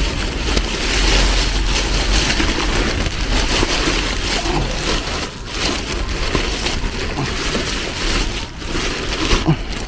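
Black plastic garbage bag rustling and crinkling as gloved hands rummage through the vegetables inside it, a dense, irregular crackle throughout.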